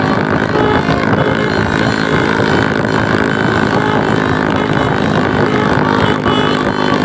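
Tour bus engine running loud and steady close by.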